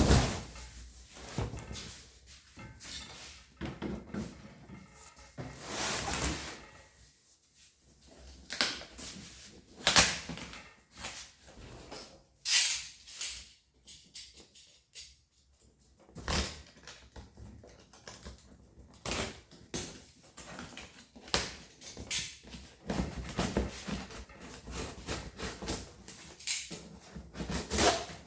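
A series of irregular knocks, clunks and rustling handling noises in a small room, with short pauses between them; no engine is running.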